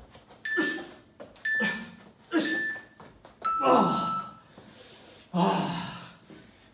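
A man breathing hard and out of breath from exercise: five loud, gasping exhales about a second apart, some with a groan in them. The longest comes about three and a half seconds in.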